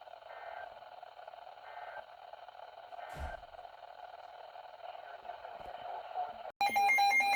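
Radio receiver static: a steady thin hiss with a single knock about three seconds in. Near the end the audio cuts out for an instant and a loud, buzzy electronic data tone starts, pulsing rapidly. These are the SAME header bursts that open an Emergency Alert System alert.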